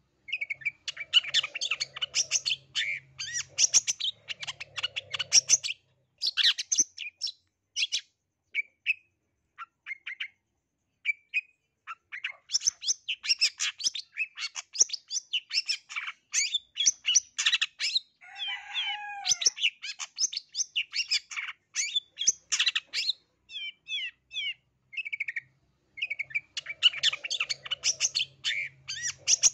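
Long-tailed shrike (cendet, the black-headed 'blangkon' form) singing a fast, chattering song full of mimicked calls. It comes in long rapid bursts broken by short stretches of scattered single notes, with a lower warbling phrase a little past the middle.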